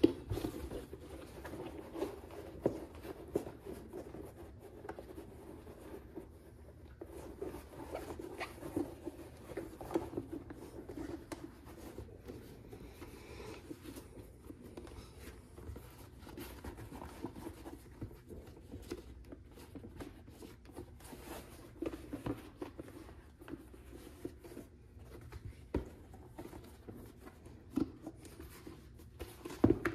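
Hands handling and flexing a Hermann Oak latigo-leather tool pouch: steady rubbing and scuffing of the leather, with frequent small clicks and taps.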